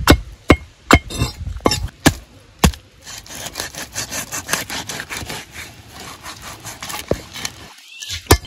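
A heavy curved knife chopping a red-bellied pacu against a wooden chopping block: sharp knocks of the blade on the wood about twice a second for the first few seconds. Then quicker, lighter sawing and scraping strokes as the blade works through the fish's head, with one more knock at the end.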